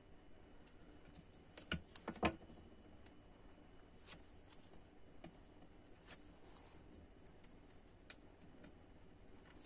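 Faint handling sounds of a clear acetate sheet and thin double-sided tape on a cutting mat: a short cluster of clicks and taps about two seconds in, then a few single ticks spaced a couple of seconds apart.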